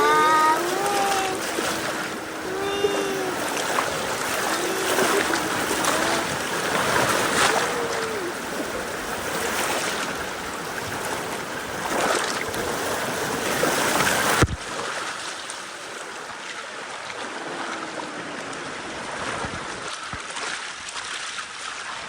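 River water rushing and splashing around a bamboo raft drifting downstream, as a steady noise. A voice exclaims "wow" at the start. About two-thirds of the way through the noise drops suddenly to a quieter, duller rush.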